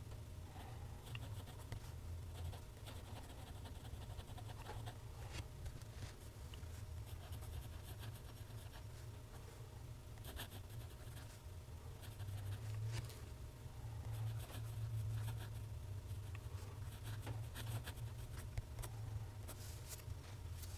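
Steel nib of a TWSBI ECO fountain pen scratching faintly over Clairefontaine paper as cursive is written, in short strokes with small pauses between words. A steady low hum runs underneath.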